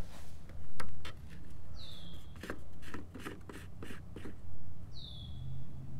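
Plastic fuel cap on a Briggs & Stratton mower engine's tank being twisted off by hand: a run of clicks and scrapes. A bird calls twice, a short whistle falling in pitch each time.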